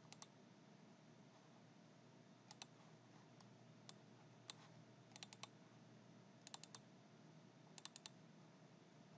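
Faint computer mouse clicks, single and in quick pairs and triples, spread over a steady low room hiss.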